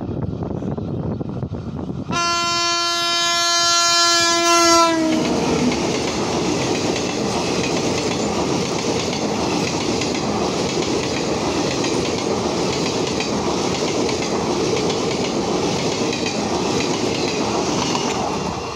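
WAP-5 electric locomotive sounding its horn for about three seconds, starting about two seconds in, its pitch dropping as it passes. A long rake of ICF passenger coaches then rushes past at speed with steady wheel-and-rail noise, which falls away near the end as the last coach goes by.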